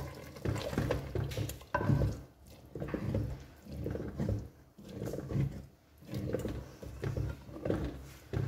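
Wooden spatula stirring a thick chana dal and meat curry in an earthenware handi: wet sloshing and the spatula scraping the pot, in uneven strokes about once a second.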